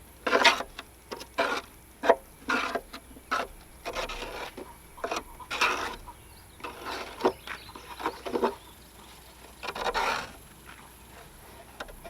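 Hand scraping on a zero-turn mower deck: an uneven run of short scraping strokes, about twenty of them, with a pause of about a second before the last few.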